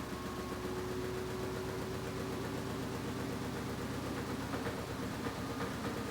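Washing machine running, a steady mechanical hum.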